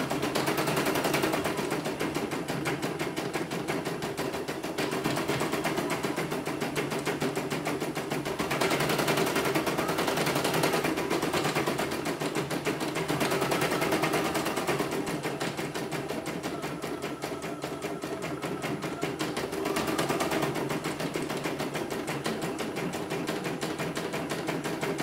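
CNY portable embroidery machine stitching a design at speed: a rapid, steady clatter of needle strokes that swells and eases a few times. It is a test run after repair, with the machine running smoothly.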